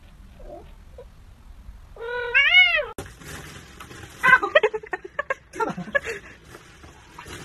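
Domestic cat meowing: a few faint soft calls, then one loud drawn-out meow about two seconds in that rises and then falls in pitch. After that comes a run of shorter, higher calls mixed with light clicks.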